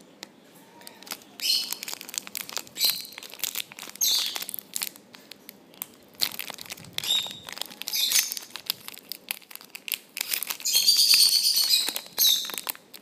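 Foil Pokémon trading card booster pack wrapper crinkling in irregular bursts as it is handled and torn open.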